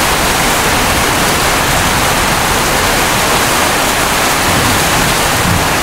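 Steady rush of thunderstorm rain and wind, with an irregular low buffeting of wind on the microphone; no thunderclap.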